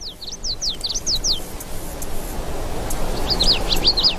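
A rapid run of short, high, falling chirps at the start, and a second run about three seconds in, over a steady background hiss.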